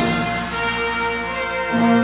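A brass band playing held chords, with cornets, euphoniums, tubas and trombones together; a new low note comes in near the end.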